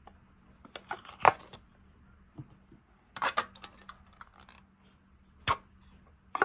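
Small can of cornstarch being handled, giving a few scattered taps and clicks. The loudest comes about a second in, a short cluster follows near three seconds, and there is a sharp click past five seconds.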